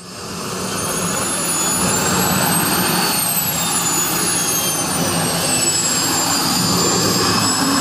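Turbine engine of a large RC model jet running: a high whine over a steady rush, fading in at the start, rising in pitch for about three seconds and then slowly falling.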